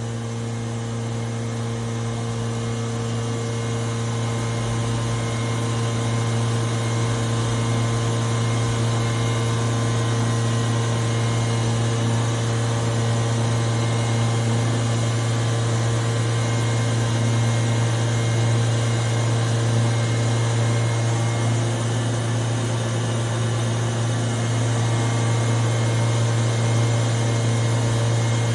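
Kitamura Mycenter 2Xi CNC machining center's spindle running steadily at its top speed of 15,000 RPM, a smooth, even hum that is super quiet for the speed. It swells slightly over the first few seconds, then holds.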